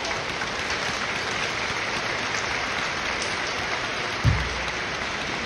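Stadium crowd applauding steadily, the clapping that greets a player's name during a starting-lineup announcement over the public address. A brief low thump about four seconds in.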